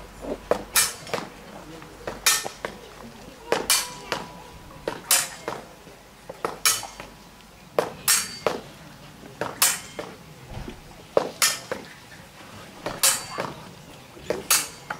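Sabre blades clashing metal on metal in a fencing drill: sharp, ringing strikes, often in quick pairs of cut and parry, about every second or so.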